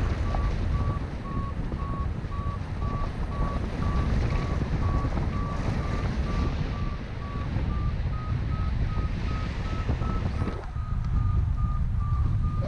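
Paragliding variometer beeping about twice a second, its pitch stepping a little higher about eight seconds in: the climb tone of a glider rising in lift. Wind rushes over the microphone underneath, dropping briefly near the end.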